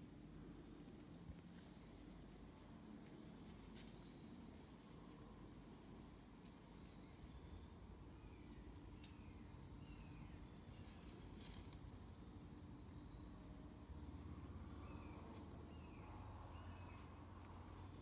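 Faint, steady high-pitched insect trill, with short high chirps recurring in small groups every couple of seconds.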